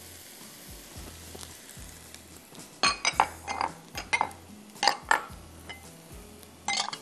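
Sharp clinks and knocks of glass prep bowls and utensils being handled on a kitchen counter. They come in a run from about halfway in, with one more near the end.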